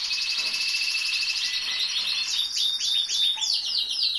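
Domestic canaries singing: a dense, rapid trilling song, with a run of quick downward-sliding notes from about halfway through.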